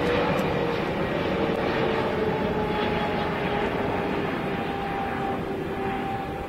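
Boeing 777-300ER airliner on final approach, its twin GE90 turbofans running at approach power: a steady jet rumble with a tone that slowly slides down in pitch, fading slightly.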